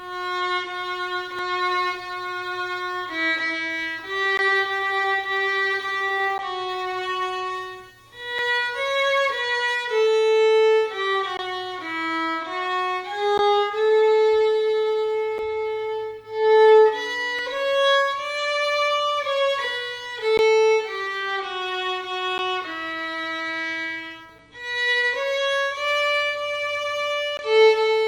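Solo instrumental music: one slow melody line of held notes, with slides between some of them and brief pauses about 8, 16 and 24 seconds in.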